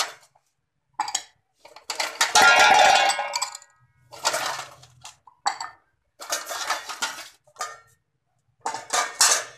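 Metal plates and dishes clattering against each other and a large aluminium cooking pot as the pot is emptied, in about six separate bursts with short silent gaps. The longest and loudest clatter comes about two seconds in.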